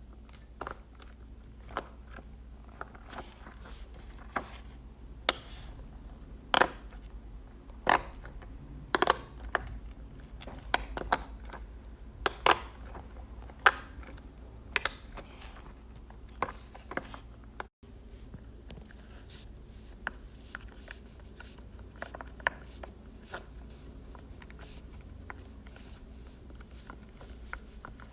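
Fidget toys being handled close to the microphone: irregular sharp clicks and pops mixed with scratching and rubbing, with the loudest clicks in the first half.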